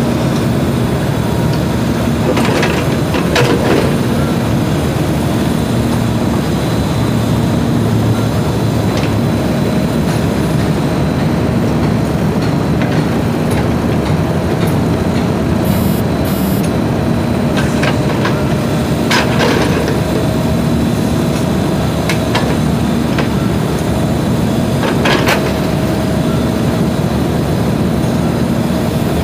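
SANY mini excavator's diesel engine running steadily under hydraulic load as it works its bucket, with a few sharp clanks.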